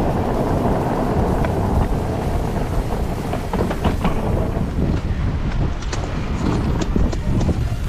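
Strong wind buffeting the microphone: a dense, gusting rumble that never lets up, with scattered short clicks in the second half.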